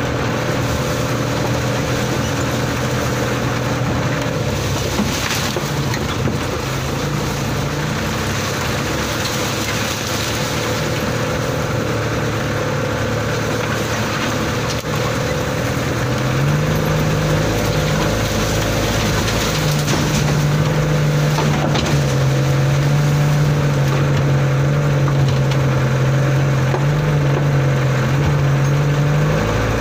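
Old truck's engine heard from inside the cab while it drives slowly over a rough muddy track. The engine runs steadily, its note stepping up and down several times as the revs change.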